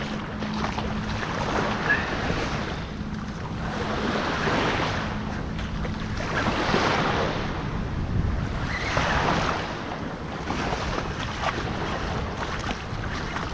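Small waves washing up onto the sand at the water's edge, the wash swelling and fading about every two seconds.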